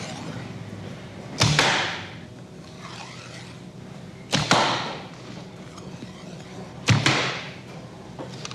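Kick sound effect: a sharp, hard hit with a brief decaying whoosh tail, played three times about two and a half seconds apart.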